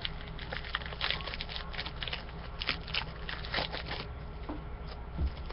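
Trading cards and their foil pack wrapper being handled: scattered crinkles and clicks, with a soft thump about five seconds in.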